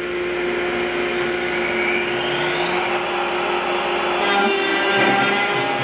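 A dust collection vacuum runs steadily while the CNC router's spindle motor spins up, its whine rising over the first three seconds. About four seconds in, the bit lowers into the board and starts cutting a pocket, adding a louder rough cutting noise.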